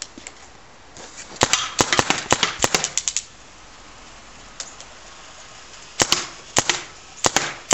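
Spyder VS3 paintball marker firing fast in semi-auto: a quick string of about a dozen shots over roughly two seconds, a pause, then another burst of shots about six seconds in.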